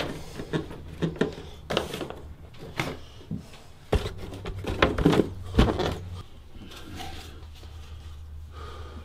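Irregular knocks and taps of hands and tools working a plastic bathtub wall surround panel into place, the loudest in the middle and fewer near the end, over a low steady hum.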